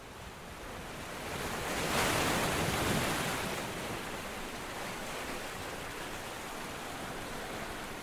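A steady rushing noise, like surf or wind, with no pitch or rhythm. It swells about two seconds in, then eases to an even hiss.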